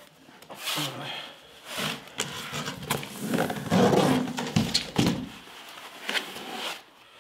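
Thick foam packing insert and cardboard box being handled: the foam lifted out and the box pushed aside, giving a run of cardboard scrapes, rustles and knocks, busiest in the middle.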